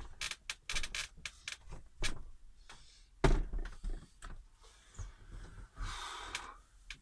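A heavy 100 Ah AGM battery being handled and set down into a plywood battery compartment: a run of small knocks and clicks, one heavy thud about three seconds in, then scraping as it is shifted into place.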